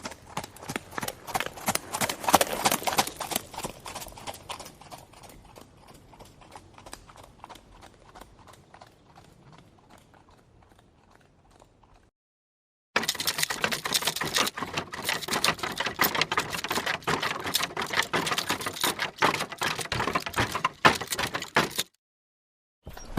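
Galloping horse hoofbeats, a rapid run of strikes that swells during the first few seconds and then fades away over about ten seconds. It cuts to silence for about a second, then a second galloping recording plays at a steady level for about nine seconds and stops abruptly. A third burst of hoofbeats starts just at the end.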